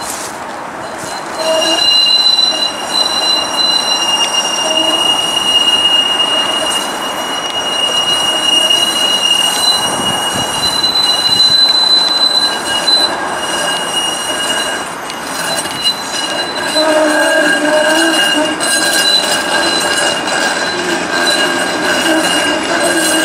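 TTC Flexity Outlook streetcar's wheels squealing in steady high-pitched tones as it rounds the curve of the loop track. Lower tones join in near the end as the car passes close.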